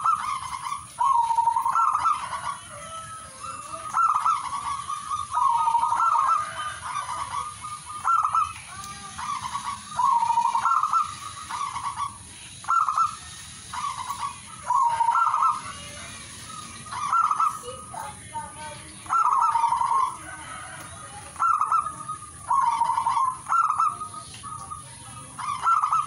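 Zebra dove (perkutut) singing: short bursts of rapid, soft cooing notes, repeated every one to two seconds.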